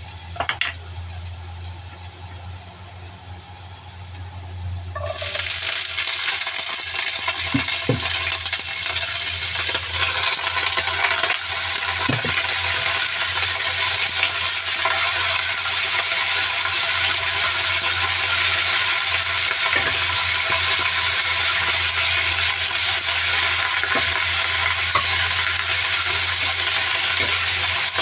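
Food frying in hot oil in a pan. A loud, steady sizzle starts suddenly about five seconds in and holds, with a few light knocks from stirring.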